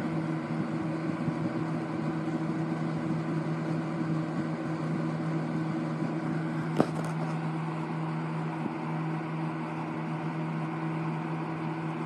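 1960s Eskimo 12-inch box fan running steadily on high speed: an even hum with a rush of air. A single short click sounds about seven seconds in.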